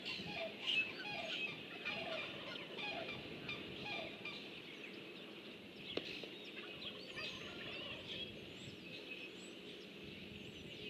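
A turkey calling, a run of short repeated notes about two a second over the first four seconds or so, with small birds chirping and twittering. A single sharp click about six seconds in.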